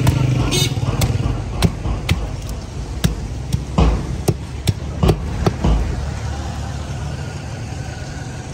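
Knife strokes on a large fish on a wooden chopping block, sharp knocks about two a second that stop about six seconds in. A steady low rumble runs underneath.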